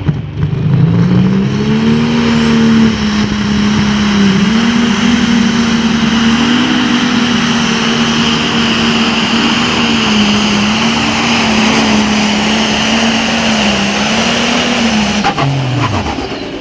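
Super Farm class pulling tractor's diesel engine under full load on a pull. The engine note climbs about a second in and holds high with small dips and recoveries, then drops away sharply near the end.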